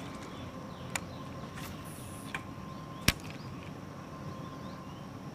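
Quiet open-air ambience on the water: a faint steady hum with a few short, sharp clicks, the loudest about three seconds in, and faint bird chirps.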